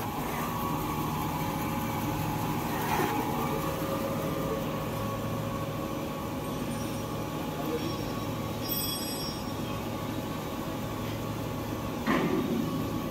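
Toilet paper roll making machinery running with a steady hum that holds several steady tones. A few short knocks stand out: one at the start, one about three seconds in, and a louder one near the end.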